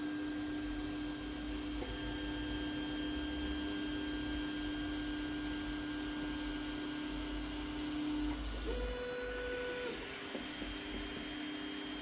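Creality Ender-3 3D printer printing a bed-levelling test pattern: its stepper motors whine with a steady tone. About eight and a half seconds in the tone jumps higher for about a second as the print head's move changes, then settles back.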